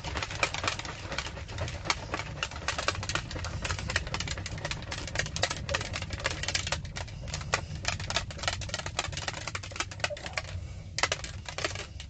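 Plastic protein shaker bottle being shaken hard to mix clear whey isolate powder into water: a fast, continuous clicking rattle, with a short break a little after ten seconds in.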